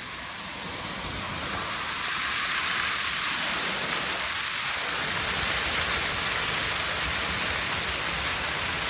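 Rushing water of a rain-swollen creek flowing over the trail, a steady rush that grows louder over the first few seconds and then holds.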